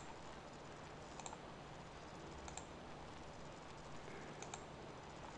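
Faint computer mouse clicks, four or five of them a second or more apart, over a low steady hum.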